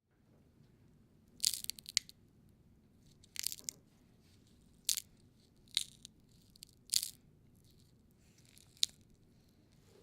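A series of about six short, crisp crunches at irregular intervals, like something brittle being crushed or bitten, recorded as a foley sound effect.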